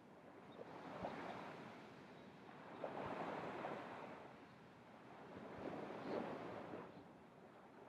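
Ocean surf: waves breaking and washing in on the beach, the rush of water swelling and fading three times.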